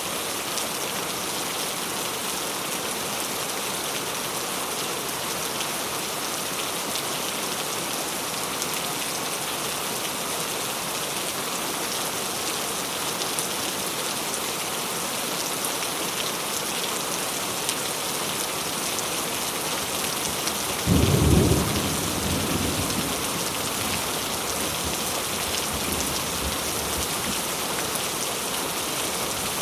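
Steady rain falling. About two-thirds of the way through, a sudden clap of thunder is the loudest thing heard; it rumbles briefly and dies back into the rain.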